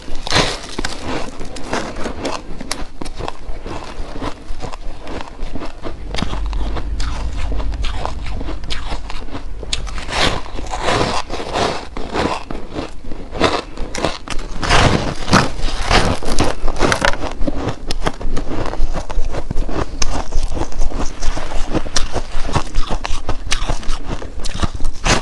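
Close-miked biting and chewing of blocks of shaved ice with dried rose petals: a steady run of crisp, irregular crunches and crackles.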